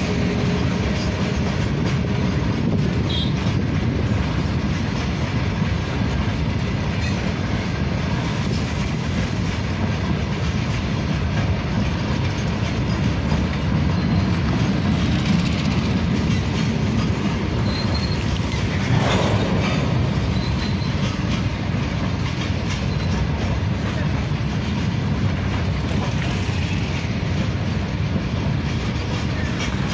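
Covered goods wagons of a long freight train rolling past at close range: steel wheels running steadily on the rails.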